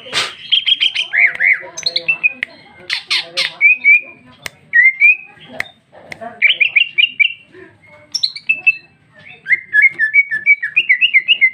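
Female greater green leafbird (cucak ijo) singing a loud, varied song: quick chirping phrases and trills mixed with a few harsh, scratchy squawks, broken by short pauses and ending in a fast run of repeated notes.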